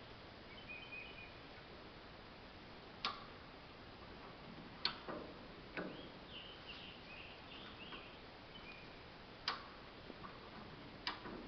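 Five sharp clicks or knocks, one to four seconds apart, over a quiet background, with faint high chirps between them.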